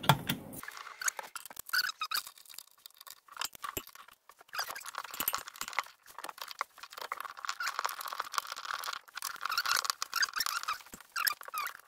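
Small metal clicks and scrapes as bolts are fitted and turned with a hand driver into steel plates under a van's seat-mount bars. The clicking comes in quick, irregular runs and is busiest from about four seconds in.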